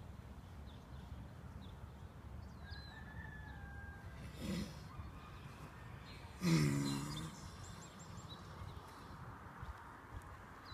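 A horse rolling on its back in sand, giving a short groan about four and a half seconds in and a louder, longer groan about two seconds later, with faint bird chirps around it.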